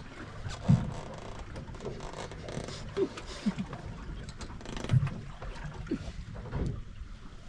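Water slapping and gurgling against the hull of a drifting fishing boat: a handful of short, low knocks over a steady wash of sea and wind noise.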